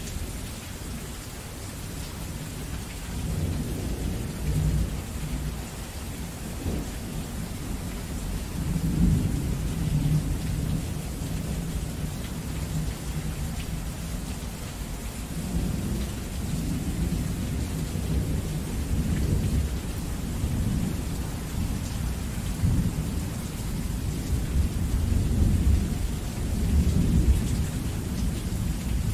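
Heavy rain falling steadily, with deep rolling thunder that swells and fades several times.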